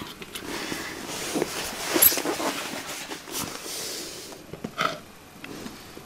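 Handling noise from pressing ribbon cables into the connectors on a Sinclair ZX Spectrum +2 circuit board: light rustling with scattered clicks, the sharpest about two seconds in and another near five seconds.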